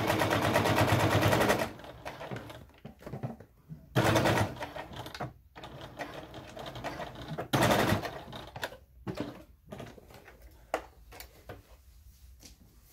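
Electric domestic sewing machine stitching through thick fabric layers in three short runs: a longer one of about two seconds at the start, then two of about a second each, with quiet clicks and fabric handling in between.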